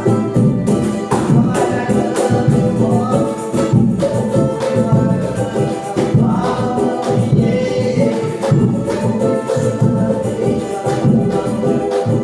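A song playing: a band with a singing voice over a steady, even beat.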